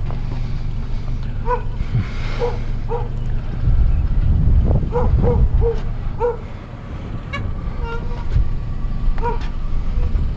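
A dog barking in short, separate barks, about a dozen spread over a few seconds, over the steady hum of an idling vehicle engine. A heavier low rumble comes in about four seconds in and fades out by about six seconds.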